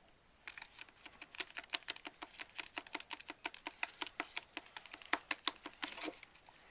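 Small plastic spoon clicking and tapping rapidly against a plastic tray compartment while stirring candy powder and water into a paste, several clicks a second; it stops about six seconds in.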